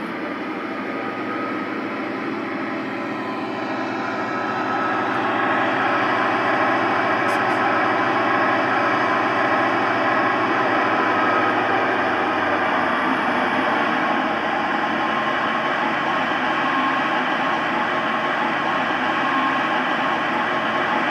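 Simulated EMD 16-645E3 diesel engine sound from a Zimo decoder, played through the G-scale GP40 model's Visaton loudspeakers. The engine runs steadily, swells louder a few seconds in, and then holds at the higher level.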